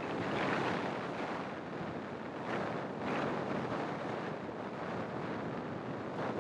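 Wind rushing over the microphone of a camera mounted on the outside of a moving car, rising and falling in gusts, over the car's road noise.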